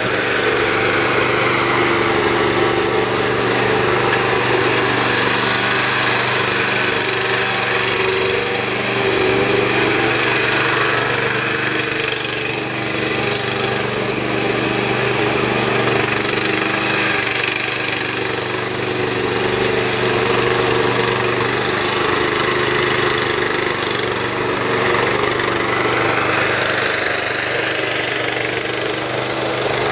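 Engine of a 1995 Dixon 3304 zero-turn riding mower running steadily at constant speed as the mower is driven around on its rebuilt friction-drive transaxle. Its level rises and falls a little as it moves.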